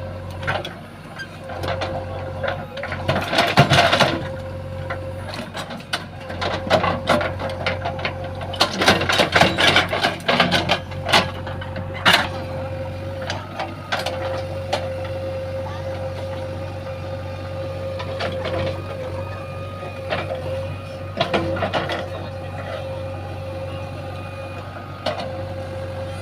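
JCB 3DX backhoe loader working: its diesel engine runs with a steady low hum and a steady high whine, over irregular clanks and knocks that are thickest in the first half.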